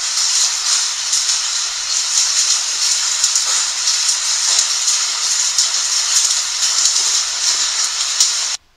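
Hailstorm: hail and heavy rain pelting down in a dense, steady hiss of countless small impacts, cutting off suddenly near the end.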